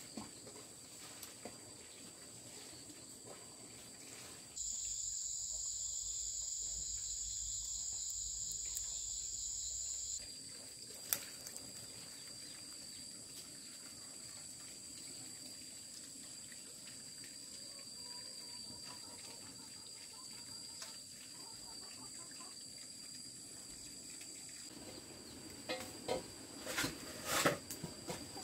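Steady high-pitched insect chirring. From about four and a half to ten seconds in it turns louder and hissier, then stops abruptly. A few clicks and knocks come near the end.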